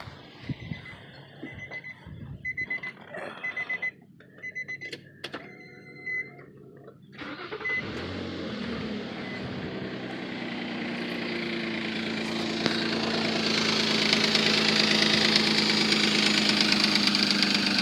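A car's warning chime beeping repeatedly, with a few clicks, then about seven seconds in the Nissan Maxima's 3.5 V6 starts and runs, getting louder over the following seconds. The idle carries a loud lifter noise that a Motor Medic flush and fresh oil have not quieted.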